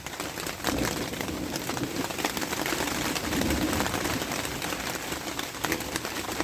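Steady rain falling, with many small drop ticks, growing louder about a second in.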